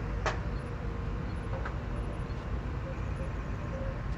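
A 3D printer running: a steady low hum with faint, shifting stepper-motor tones. One sharp click comes about a quarter second in.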